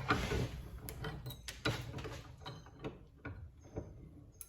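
Metal scraping and clicking as a blade cuts copper away from a microwave magnetron's steel body, a rasping scrape at first, then a run of short clicks that grow fainter.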